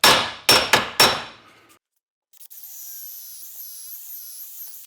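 Four sharp ringing hammer strikes on the steel maul head in about a second, knocking at the stuck handle stub. About two and a half seconds in, a handheld power tool starts and runs with a steady high whine whose pitch wavers.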